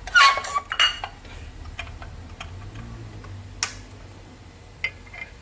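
Metal clattering and ringing from a vegetable slicing machine being handled as its slice-thickness setting is adjusted. It is loudest right at the start and is followed by scattered light clicks.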